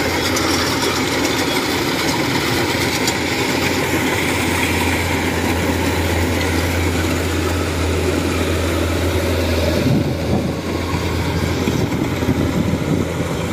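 Kubota DC-105X rice combine harvester running steadily as it cuts and threshes rice, its diesel engine and threshing machinery making a continuous drone. About ten seconds in the low hum falls away as the machine moves off.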